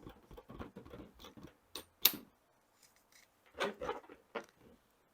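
A blown-up rubber balloon with a penny inside, handled and twirled right against the microphone: irregular rubbing rustles and clicks, with a sharp tap a little after two seconds in and another flurry of rustling near the end.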